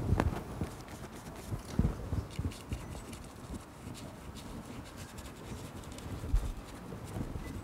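Stiff bristle brush scrubbing acrylic paint onto a board on an easel, with faint scratchy strokes and a few dull knocks, the loudest about two seconds in and again near the end.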